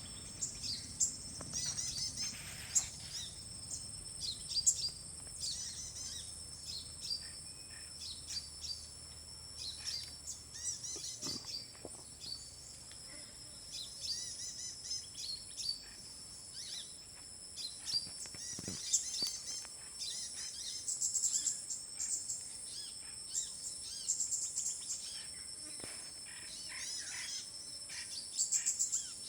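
Many wild birds chirping and calling in quick, overlapping phrases at a fruiting forest tree, over a steady high-pitched drone of insects.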